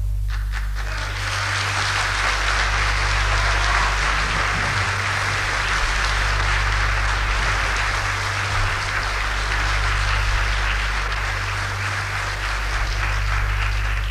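Audience applauding at the close of an opera duet, swelling over the first second or so, with a steady low hum underneath.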